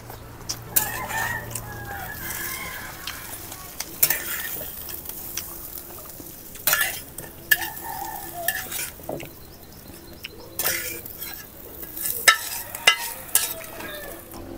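Fish frying in hot oil in a metal wok, sizzling steadily, while a metal spatula scrapes and clanks against the pan several times. A rooster crows in the background a few times.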